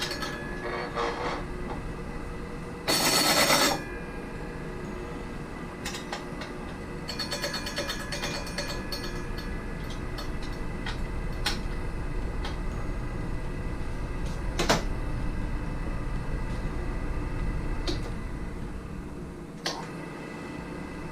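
Mechanical work on a meat slicer: scattered sharp clicks and knocks over a steady hum, with one brief loud buzzing burst about three seconds in.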